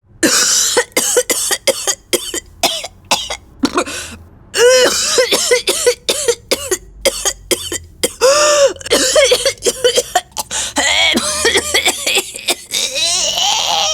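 A person coughing and spluttering in a long, irregular fit of hacking coughs and throat-clearing, with a raspy run near the end. It is a vocal take-off of a car that coughs and splutters, a car that is "sick" and needs a service.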